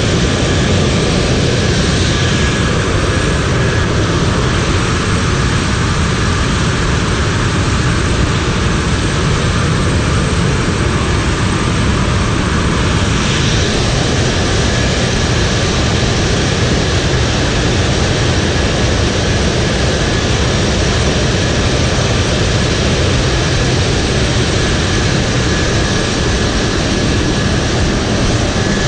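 C-17 transport's turbofan engines running on the ground: a loud, unbroken jet rush with a faint steady whine on top.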